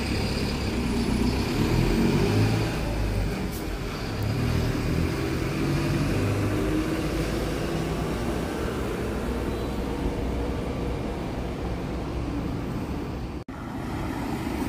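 Diesel engine of a front-engined Busscar coach running as the bus moves, a steady low rumble that swells slightly a couple of seconds in.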